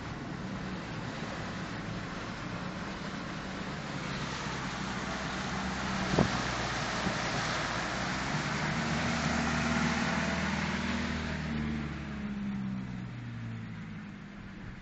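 Car driving through a flooded street, heard from inside the cabin: a steady rush of tyres through standing water with engine noise, swelling louder in the middle with a deeper engine hum, and a single sharp knock about six seconds in.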